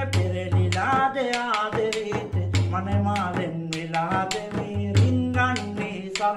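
A man singing in the Sri Lankan viridu folk style, accompanied by quick hand strokes on a rabana, a hand-held frame drum. A low pulse recurs under the voice and drum.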